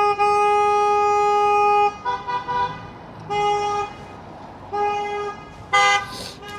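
Car horns honking in traffic: one long blast of about two seconds, then a string of shorter honks about a second apart. Impatient honking at a driver sitting at a green light.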